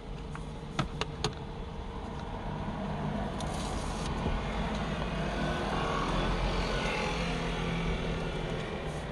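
A few sharp clicks, then the noise of a passing car swelling and fading.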